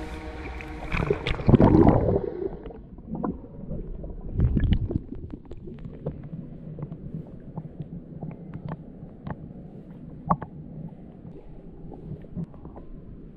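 Pool water splashing and sloshing around a swimmer in a mermaid tail, heard muffled through a camera at and under the surface. Two heavier splashes come in the first five seconds, then low churning with scattered small ticks and bubbles.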